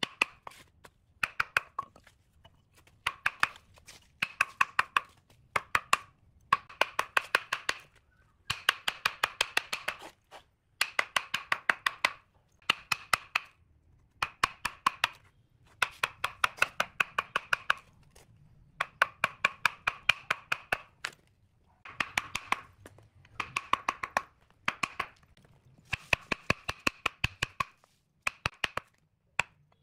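Steel chisel struck in quick runs of sharp taps as it is driven under the bark of a log to strip it off. The runs last a second or two with short pauses between them, and each tap rings at the same pitch.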